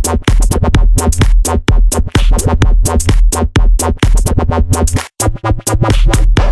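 Electronic dance music with a fast drum-machine beat and heavy bass; the bass drops out briefly about five seconds in.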